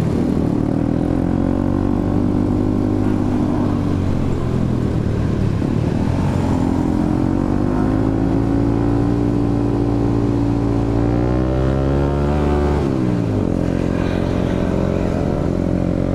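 Motorcycle engine pulling uphill, its revs climbing steadily for several seconds, then dropping sharply about thirteen seconds in before running steady again.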